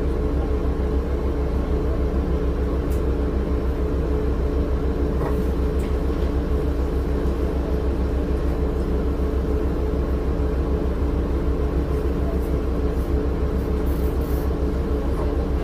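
The Cummins ISL9 straight-six diesel of a 2006 Orion VII bus, heard from inside the passenger cabin, running at a steady speed with no change in pitch.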